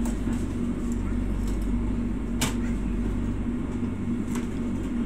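Steady low mechanical hum inside a passenger train coach, with a sharp click about two and a half seconds in and a fainter one near the end.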